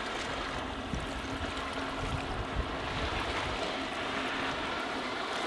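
Mariner 60 hp two-stroke outboard on a small fishing boat running at planing speed, heard faintly as a steady hum over the wash of water and light wind on the microphone.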